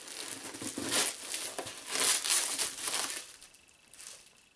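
Bubble wrap around a boxed vinyl figure crinkling and rustling as it is handled and pulled from a package, loudest about one and two seconds in, dying away after about three seconds.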